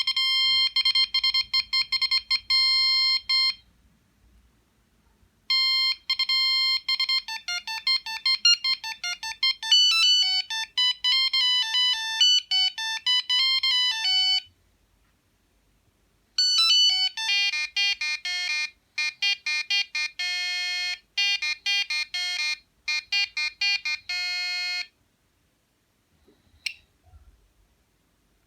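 Sony CMD-CD5 mobile phone playing its built-in ringtones: three short, high-pitched electronic melodies one after another with brief silences between them. A single click sounds a couple of seconds after the last melody ends.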